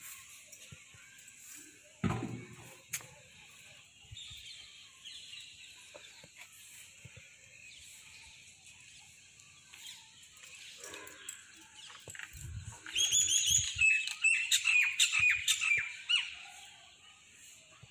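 Birds chirping in the background, with a loud run of rapid chirps for about three seconds near the end. A single knock about two seconds in.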